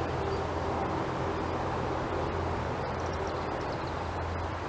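Steady outdoor background noise: a constant low rumble under an even hiss, with a thin steady high whine.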